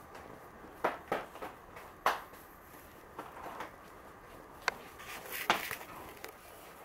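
A caver crawling on his belly and hands over rock through a tight squeeze: scattered scrapes and knocks of body, clothing and hands against the stone, a few sharp ones spread unevenly.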